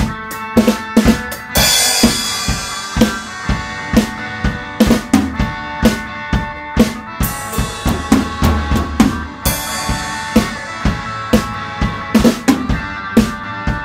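Instrumental band music: a full drum kit beating out a steady kick-and-snare groove with rimshots, over sustained guitar and keyboard chords and bass. Cymbal crashes come in a couple of seconds in and twice more past the middle.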